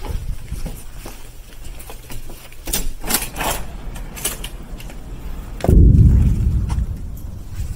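Several clicks and knocks from a door's handle and latch as the door is pushed open, with footsteps. Past the middle a loud low rumble that fades over about a second and a half is the loudest sound.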